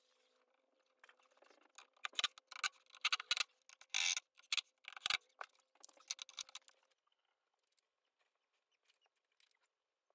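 Scraping, clicking and a few knocks of a painted wooden tray and board being handled and fitted against a shelving cabinet. They come in clusters over about five seconds, with a faint steady hum behind them, then fade to occasional light ticks.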